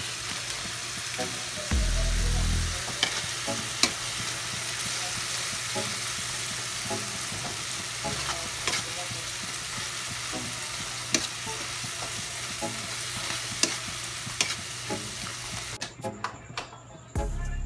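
Tomatoes and onions sizzling and frying in a wok, with a spatula stirring and clicking against the pan several times. There is a brief low thump about two seconds in, and the sizzling drops away near the end.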